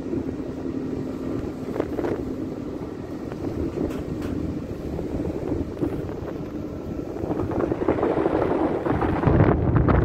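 Strong wind buffeting the microphone aboard a ship, over a low steady hum of the ship's engine; the wind gusts grow louder near the end.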